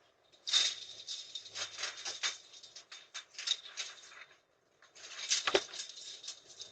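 An irregular patter of rustling and tapping, in two runs with a short break a little past the middle.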